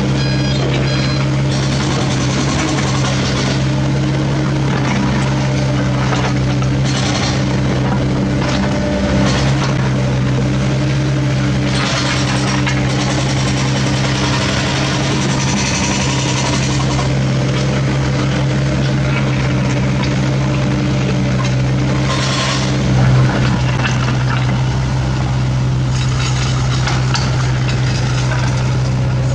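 Steady drone of diesel engines from a dump truck and a CAT mini excavator working close by. Several times, mostly around the middle, broken road debris clatters and scrapes as it is dropped from the excavator bucket into the steel truck bed.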